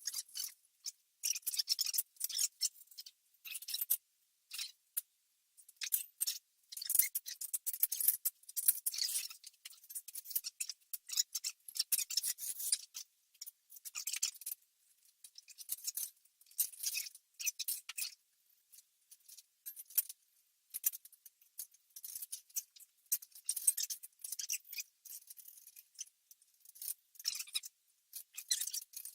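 Bursts of light, rapid clicking and clinking from hand work on the metal parts of a 12-ton hydraulic shop press during assembly, in short runs with brief pauses between them.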